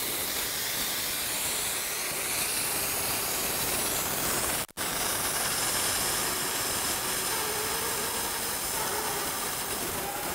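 Multiplaz 3500 steam plasma torch burning with a steady hiss as its arc cuts through thin, rusty exhaust-pipe steel. About halfway through, the hiss drops out for an instant and then carries on.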